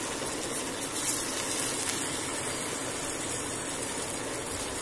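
Batter-coated paneer cubes deep-frying in hot oil in a kadai: a steady sizzle of bubbling oil.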